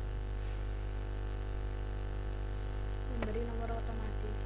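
Steady electrical hum with many evenly spaced overtones, with a faint voice about three seconds in.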